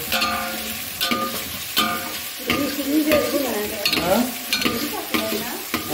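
Chicken and browned onions frying in oil in a large steel pot, sizzling steadily while a metal spatula stirs and scrapes against the pot every second or so. This is the long bhuna stage of browning the chicken for pulao.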